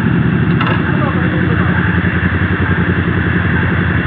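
Motorcycle engines idling steadily, with a low, even pulse.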